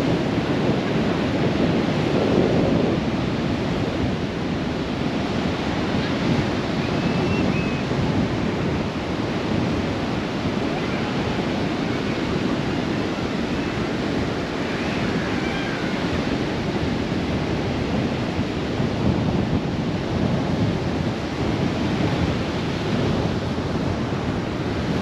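Steady rush of surf breaking and washing up a sand beach, mixed with wind blowing across the microphone.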